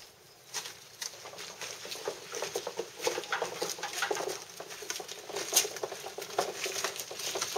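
Footsteps on a leaf-strewn paved path, then a small hand cart loaded with flowerpots rattling as it is pulled over the paving stones: a dense run of irregular clicks and clatters.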